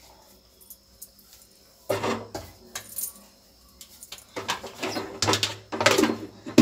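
Clinking and clattering of kitchen dishes, starting about two seconds in: a steel pot is handled and a plate is set over it as a cover, with some clanks ringing on.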